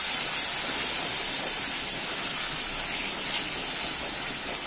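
Spice paste of tomato, green chilli and ground spices sizzling in hot mustard oil in a kadai as it is stirred. The masala is being fried down until the oil separates. It makes a loud, steady, high hiss that eases slightly toward the end.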